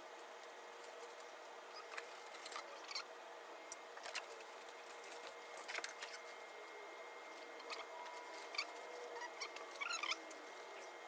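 Quiet rustling and scraping of cardboard, foam and plastic-bag packaging as laser engraver parts are lifted out of a shipping box, with a few sharp clicks of parts knocking.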